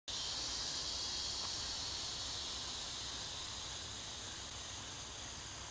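Night insects chirring in a steady high hiss, with a faint low hum underneath; it cuts in suddenly and eases off slightly over the seconds.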